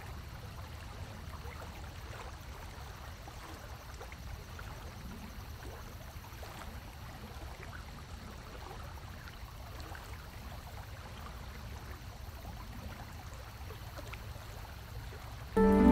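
Steady low rumble of background noise with faint scattered ticks. Music cuts in suddenly at the very end.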